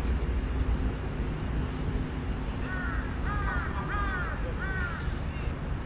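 A crow cawing, about five harsh calls in quick succession, starting a little before halfway.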